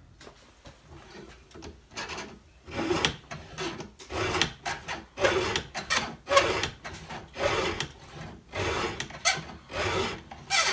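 Double-bevel square file rasping across the cutter tooth of a chainsaw chain held in a Granberg File-N-Joint jig. The strokes are short and scratchy, coming about once a second and starting about two seconds in.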